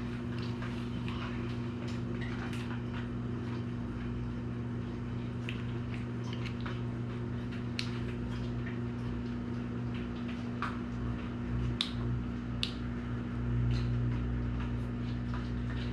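Small clicks and taps of a new spinning reel and its handle being handled and fitted, over a steady low electrical hum.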